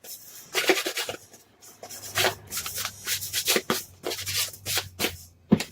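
Ink pad rubbed and dabbed along the edges of a paper card, a run of quick, irregular scuffing strokes that give the card a grungy inked edge.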